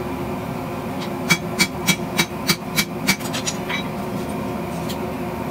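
Hammer forging a red-hot kukri blade on a steel anvil: seven ringing blows, about three a second, then a short rattle of lighter metal clanks.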